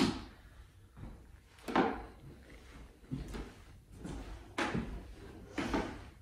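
Slow, irregular footsteps and small knocks: a handful of soft thuds a second or more apart in a quiet room.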